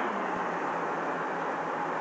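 A large vehicle engine, most likely a bus's diesel, running steadily: a low, even hum under a broad, steady rush of noise.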